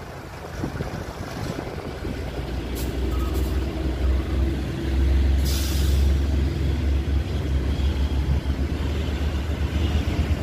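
Mercedes-Benz truck's inline-six diesel engine running as the truck drives slowly past, its rumble growing louder about four seconds in. A short burst of hissing air from the air brakes comes about five seconds in.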